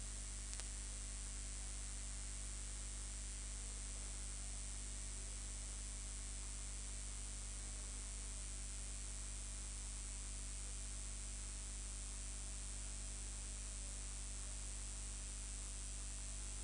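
Steady electrical hiss with a low mains-like hum underneath, unchanging throughout, like the noise floor of an audio line or amplifier with nothing playing.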